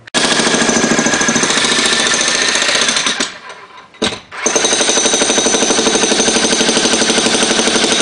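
Jackhammer pounding concrete in rapid, evenly repeated blows, breaking up an old path. It stops for about a second around three seconds in, gives one short burst, then starts again.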